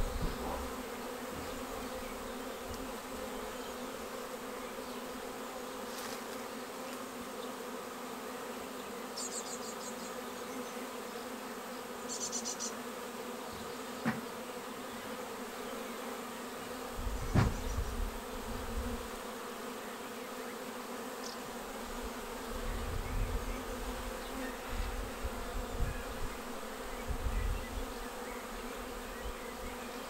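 A honeybee swarm buzzing in a steady, many-toned drone as the bees settle into a wooden bait hive. Occasional low rumbles come and go, with a sharp knock about 17 seconds in, and two brief high chittering bursts near 9 and 12 seconds.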